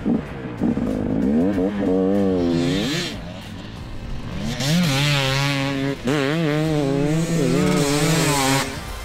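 A 2018 Husqvarna TE300i fuel-injected 300cc two-stroke enduro bike ridden hard, its engine revving up and down with the throttle and gear changes. It eases off about three seconds in, then pulls hard again from about five seconds until it drops off near the end.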